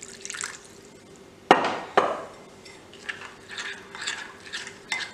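Water poured briefly from a jug into thick flour-and-cornflour batter, then two sharp knocks, then a metal spoon stirring the batter in a glass bowl, clinking and scraping against the glass in quick irregular strokes.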